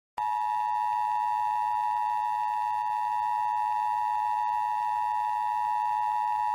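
Emergency Alert System attention signal: the two-tone alarm of 853 Hz and 960 Hz sounded together, which warns that an emergency broadcast message follows. It starts abruptly a moment in and holds steady without a break.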